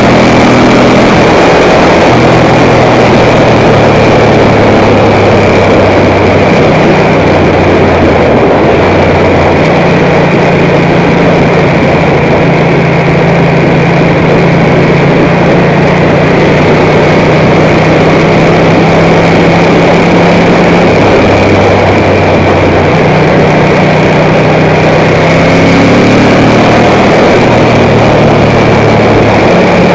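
Ducati M900 Monster's air-cooled L-twin engine running under way, its pitch stepping up and down several times with the throttle. A thick rush of wind noise on the microphone lies over it, and the whole is loud.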